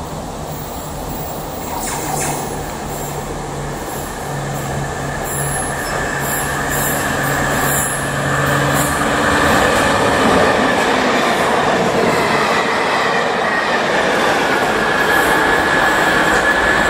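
Class 73 locomotive-hauled test train approaching and passing. A steady low hum gives way to the rush of wheels on the rails, which grows louder as the train draws level. A steady high whine joins in about twelve seconds in.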